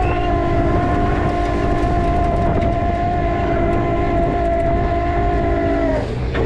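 Rollback tow truck's hydraulic winch pulling a vehicle onto the bed through a snatch block: a steady, loud whine made of several tones that sags slightly in pitch. About six seconds in it breaks off and comes back at a lower pitch.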